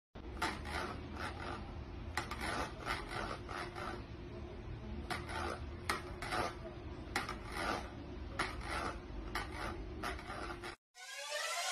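A cat shifting about inside a plastic bowl on a wooden floor: irregular scratchy rubbing and scraping sounds over a steady low room hum.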